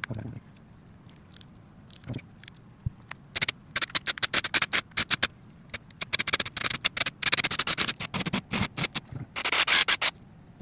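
Rapid, irregular clicks, rattles and scrapes of small parts being handled and worked on a disassembled Milwaukee cordless impact driver. They start about three seconds in, with a denser scraping stretch near the end.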